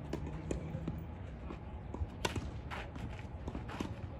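A tennis ball bounced on a clay court before a serve, a few dull taps, then a sharp crack of the racket striking the ball about two seconds in, followed by more short impacts as the point goes on.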